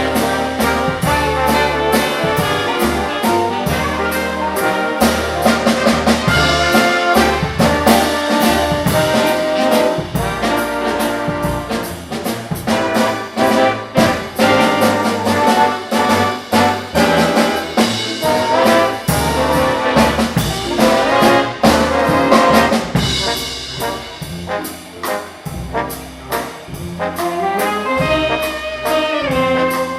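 Live big band playing, its brass section to the fore over a steady beat from the rhythm section.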